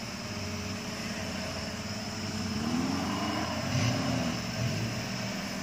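Off-road 4x4's engine running under load in deep mud, its pitch rising and falling in the middle.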